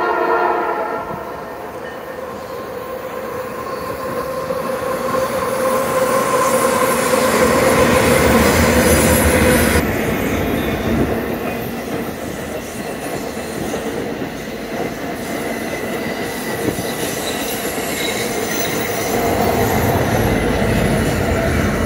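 Freight train with diesel locomotives rounding a curve. The locomotive horn's chord ends about a second in, then the rumble of the passing locomotives and cars grows louder, with a steady ringing tone over it through the first half.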